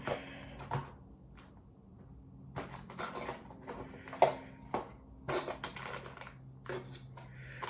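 A new Glock pistol case and its contents being rummaged and rearranged by hand: scattered rustles, knocks and clicks, with one sharp click about four seconds in.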